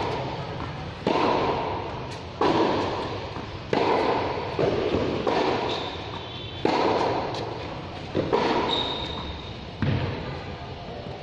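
Tennis balls struck by rackets in a steady rally, about eight sharp hits at roughly one and a half second intervals, each ringing out in a large roofed hall. Two short high squeaks come between hits.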